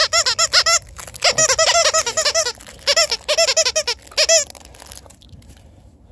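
Squeaker inside a plush dinosaur dog toy squeaking over and over in quick runs as the puppy bites it, each squeak a short rise-and-fall of pitch, several a second. The squeaking stops a little over four seconds in.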